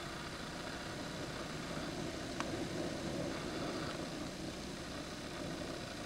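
Steady low rumble and hiss of hurricane wind, with a couple of faint clicks about two and a half and four seconds in.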